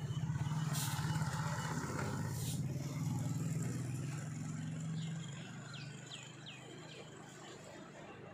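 A low steady drone, like a motor running, which fades out about five seconds in; a moment later come three short, high, falling chirps.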